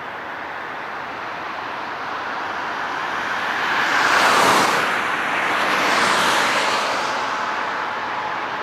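Boeing 747-8F's four GEnx-2B turbofan engines running as the jumbo jet taxis slowly: a steady rushing jet roar with a faint whine under it. The roar swells to its loudest about four seconds in, peaks again around six seconds, then eases off as the aircraft turns its tail toward the listener.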